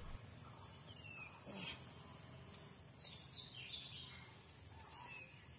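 Steady high-pitched insect chorus, with a few faint short bird chirps over it.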